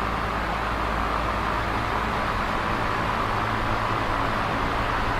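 Large box fan running steadily: an even rush of air with a low motor hum underneath.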